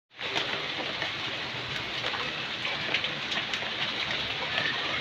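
Heavy rain falling: a steady dense hiss of the downpour, dotted with sharp ticks of drops striking close by.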